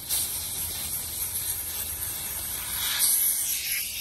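Pressurised nitrogen hissing out of a refrigerant hose fitting as the line is vented. The hiss starts suddenly and holds steady, growing louder about three seconds in.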